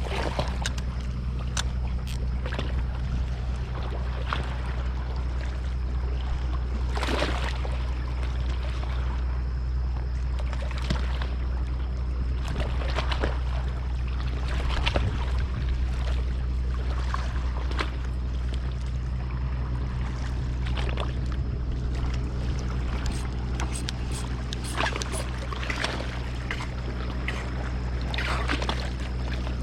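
Boat engine running steadily as a low hum, with water splashing now and then.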